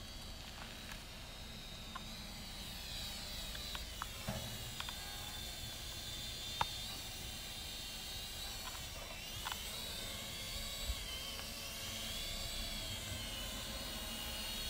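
Small quadcopter drone's motors and propellers whining, the pitch rising and falling as it manoeuvres, over a low rumble of air noise. A few sharp ticks break through, one much louder than the others midway.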